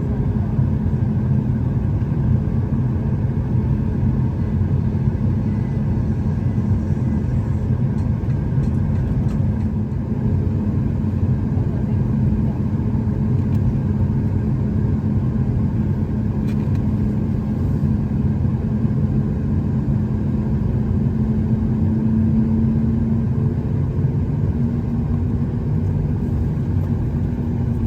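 Steady cabin rumble of a Boeing 737-8 MAX, with a low engine hum that grows a little stronger about two-thirds of the way through.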